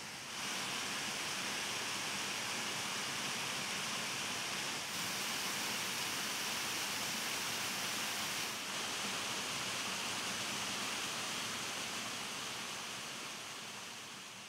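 A rocky stream cascading in small falls: a steady rushing of water that fades out near the end.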